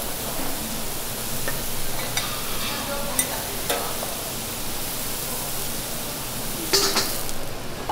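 Sliced mushrooms sizzling steadily on a hot steel teppanyaki griddle, with a few light clicks. Near the end, water poured from a kettle onto the hot griddle flashes into steam with a sudden loud hiss.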